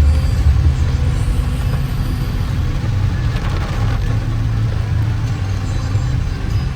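Motor vehicle running on the road: a steady low engine and road rumble.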